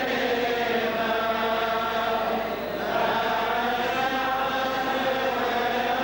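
Voices chanting a slow liturgical funeral hymn together in long held notes, with a short break about halfway through before the next phrase.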